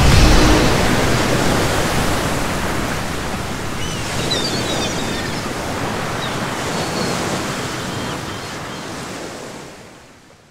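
Steady wash of sea waves and rushing water, fading out over the last second or so.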